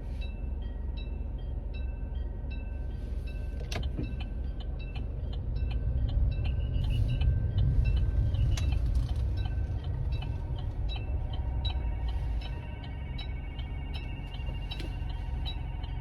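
Freight train rumbling past, louder through the middle and easing off after, with a quick regular high ticking of about two a second over it and a couple of sharp clicks.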